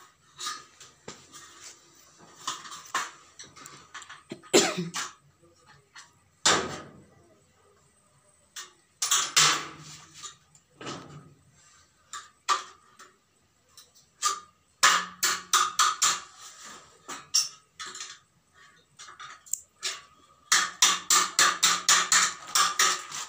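Thin aluminium window-frame channel being handled and worked with a hand tool: scattered metallic clicks, taps and scrapes. Near the end comes a fast, even run of short rasping cutting strokes, about eight a second.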